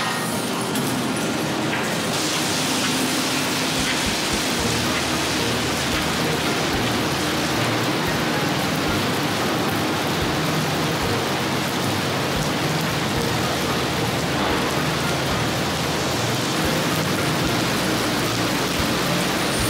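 Heavy rain pouring onto wet asphalt pavement, a steady hiss that gets louder about two seconds in.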